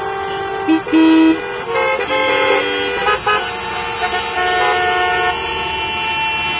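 Many vehicle horns honking at once in city traffic: overlapping long and short blasts of different pitches, with a low horn loudest about a second in.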